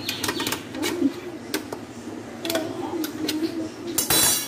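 Light metallic clicks and knocks as a cake pan is shifted level on its stand inside a large aluminium pot, with a short louder scrape about four seconds in.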